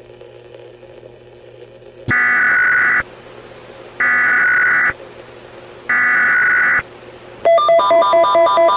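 Three bursts of Emergency Alert System SAME header data tones, each a shrill buzzing warble about a second long with about a second between them, after a faint steady hum. Near the end a loud electronic alert tone starts, pulsing about three times a second.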